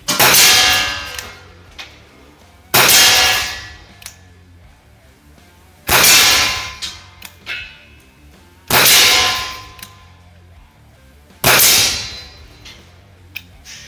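T4E TP50 Gen2 CO2-powered .50-calibre pistol fired five times, about three seconds apart, through a chronograph for a muzzle-velocity test. Each shot is a sharp report followed by about a second of ringing echo off the concrete walls of the range.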